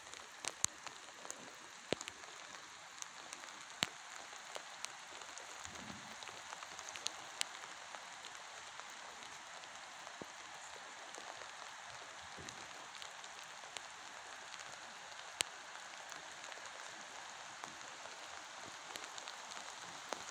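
Steady rain falling, an even hiss with scattered sharp ticks of single drops landing close by.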